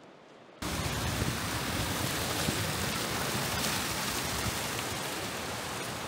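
Steady rush of fast-flowing river water swollen by heavy rain, cutting in suddenly about half a second in.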